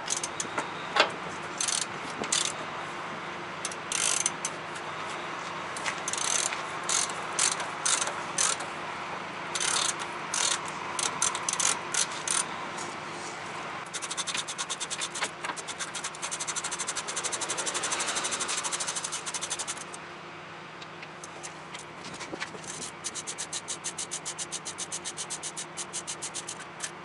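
Hand ratchet wrench clicking as the bolts of a truck's cab shock absorbers are run down and tightened. Scattered clicks at first, then a long fast run of clicks about halfway through, and a quieter, evenly paced run near the end.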